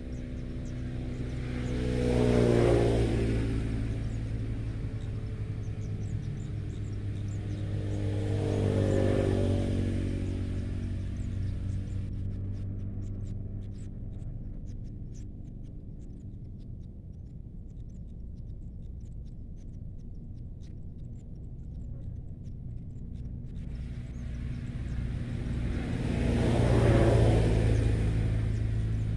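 Road vehicles passing by, three in turn: one swells up a couple of seconds in, another about nine seconds in, and a third near the end, over a steady low hum.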